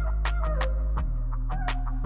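Background music with a steady beat: a drum pattern over held bass notes and a short repeating melody.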